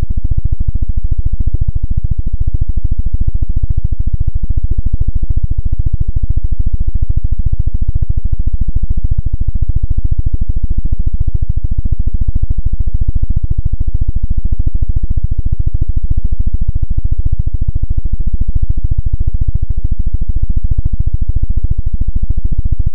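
Harsh electronic noise track: a loud, low, distorted drone with a rapid, even pulse and a faint steady high tone above it.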